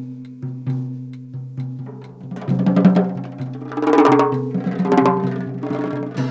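Free-jazz soundtrack music: scattered percussion hits over a steady low held tone, building to a denser, louder passage of pitched instrument notes in the middle before thinning out again.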